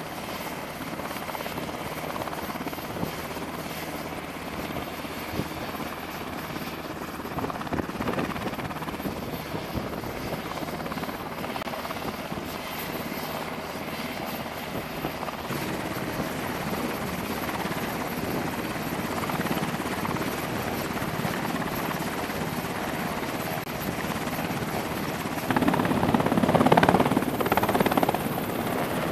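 Navy Sea Hawk helicopters running on a carrier flight deck: the steady rotor chop and twin-turboshaft whine of the turning main rotors. The sound gets clearly louder near the end as one helicopter lifts off the deck.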